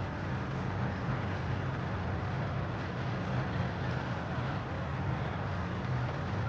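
Steady low hum and background noise of an indoor shooting hall, with no shots fired.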